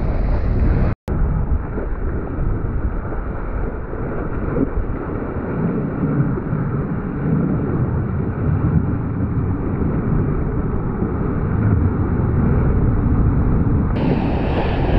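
Wind buffeting an action camera's microphone mixed with rushing sea water and surf: a dense, steady low noise. There is a brief break to silence about a second in.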